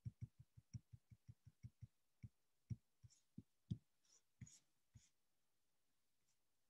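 Faint typing on a computer keyboard: a quick run of soft, dull key taps, about six a second, for the first two seconds, then scattered taps that stop about five seconds in.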